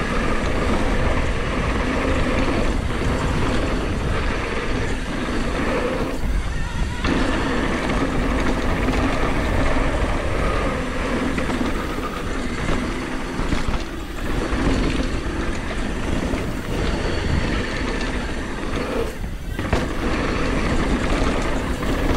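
Mountain bike rolling fast down a loose gravel trail: tyres crunching over dirt and stones mixed with wind rushing over the camera microphone. The noise eases briefly twice, about seven seconds in and again about three quarters of the way through.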